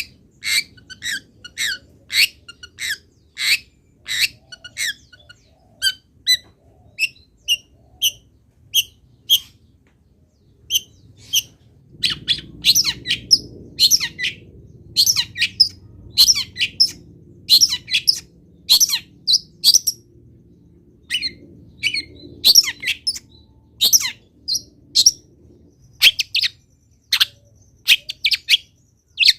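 Long-tailed shrike singing: a long run of short, sharp, high notes, one or two a second, with quick clusters of them.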